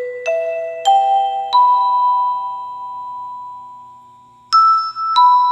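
Background music of slow, bell-like struck notes: a rising run of four notes left to ring and fade away. About four and a half seconds in, a new phrase starts on a higher note and steps down.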